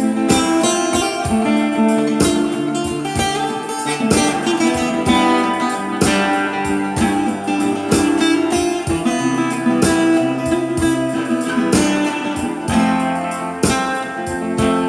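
Guitar music: a steady run of plucked notes with chords ringing underneath.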